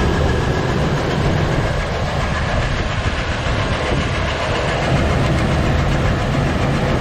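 Chevy 2500HD's 6.0-litre V8 running with a steady, rapid clatter and knock, close up at the engine. The owner believes the knocking comes from inside the block and suspects a dropped valve.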